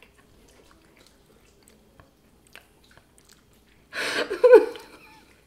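Faint chewing and small mouth clicks from people eating a donut soaked in dill pickle juice. About four seconds in comes a short, loud vocal outburst.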